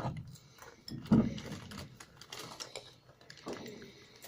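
Homemade glue-and-detergent slime being kneaded and squeezed by hand, giving irregular wet clicks and squishes. A sharper click comes about a second in.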